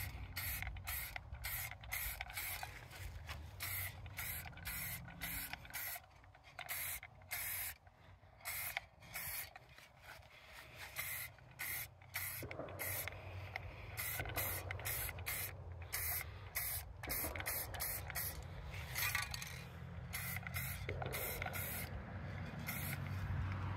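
Rust-Oleum chrome spray paint hissing from an aerosol can in many short bursts with brief pauses between them, as the headlight housings are coated.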